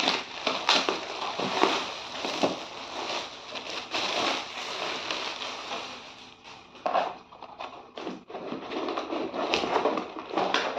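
Shiny gift wrapping crinkling and tearing as it is ripped off a package, dense crackly rustling for about six seconds, then sparser rustles and scrapes as a cardboard box's flaps are pulled open.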